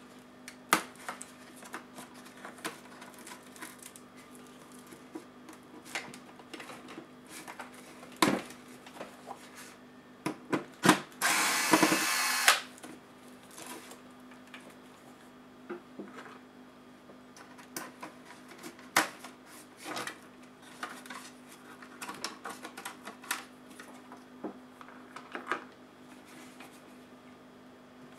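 Scattered clicks and taps of plastic laptop parts and tools being handled. About eleven seconds in, a cordless electric screwdriver whirs steadily for about a second and a half while backing a screw out of the laptop.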